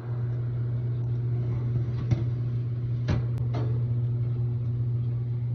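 A steady low mechanical hum from the open oven, with three short clinks and scrapes as a glass loaf pan is slid out across the oven's wire rack.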